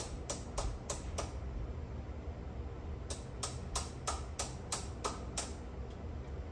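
Sharp, evenly spaced ticks, about three a second, in two runs: the first stops about a second in, and the second starts about three seconds in and runs for about two and a half seconds.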